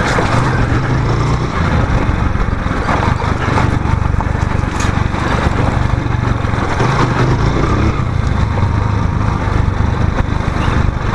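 Motorcycle engine running steadily while the bike rides over a rough dirt track, with heavy wind and road noise over it.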